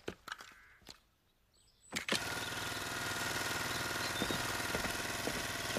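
Hedge trimmer: a few light clicks and knocks as it is picked up, then about two seconds in its motor starts suddenly and keeps running with a steady buzz.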